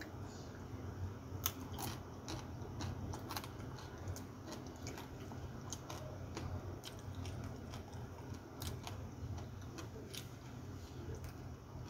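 Close-up mouth sounds of a person eating by hand: chewing and biting, with many sharp, irregular clicks and crunches. A steady low hum runs underneath.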